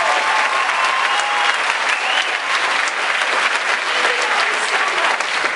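Audience applauding steadily, dense clapping with a few faint voices among it.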